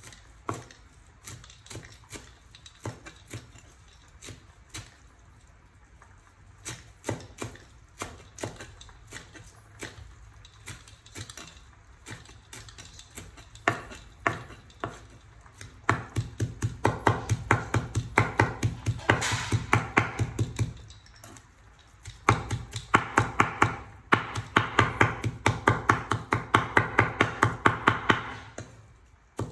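Steel cleaver chopping leafy greens into minced fish paste on a wooden cutting board: scattered, unhurried knocks at first, then fast, regular chopping from about halfway, with one short pause before it picks up again.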